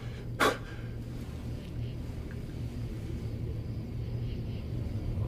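A low, steady rumble, with one short sharp sound about half a second in.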